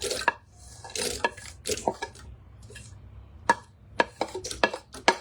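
A kitchen utensil scraping and clinking against cookware, with a run of sharp knocks in the second half, about three a second.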